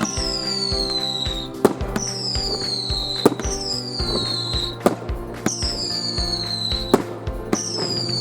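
Fireworks going off: sharp bangs every second or two and five high whistles that each fall in pitch over about a second, with music playing underneath.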